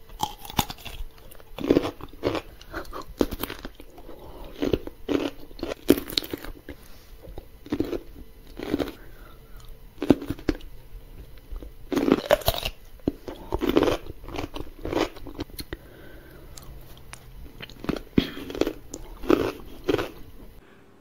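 Whole pickled cucumbers bitten and chewed close to the microphone: a run of irregular, crisp, wet crunches with short pauses between bites. The crunching stops suddenly near the end.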